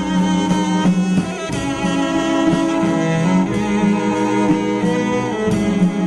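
Live music: a bowed cello plays an instrumental passage over a steady low sustained accompaniment.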